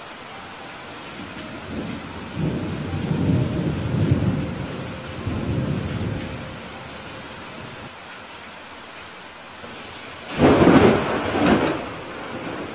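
Thunderstorm: steady rain hiss with deep rolling thunder from about two to six seconds in, then a sharper, louder thunderclap about ten seconds in that peaks twice before fading back into the rain.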